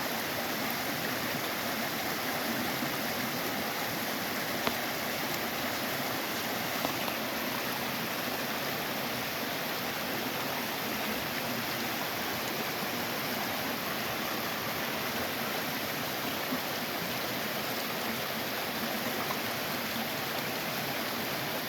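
Creek water flowing steadily, an even rushing noise.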